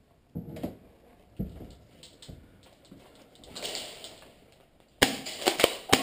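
Scattered knocks, then about five seconds in a quick run of loud sharp cracks: airsoft gunfire in a plywood close-quarters arena.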